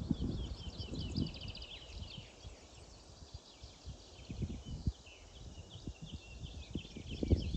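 Songbirds singing and chirping, with a quick trill about half a second in, over irregular low thuds and rumble that are loudest at the start and near the end.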